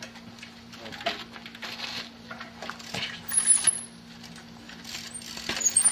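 Trials bike hopping and landing on boulders: a series of knocks and metallic clinks as the tyres and frame strike the rock, loudest about three and a half seconds in and again near the end. Brief high squeaks come with those two loudest landings.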